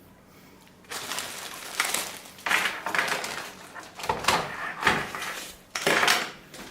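Plastic packaging rustling and crinkling in irregular bursts as wiring harnesses are taken out and handled, starting about a second in.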